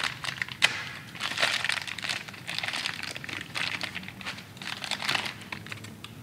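Plastic packaging crinkling and rustling in irregular bursts as it is pulled off a small needle bearing by hand, with one sharp snap under a second in.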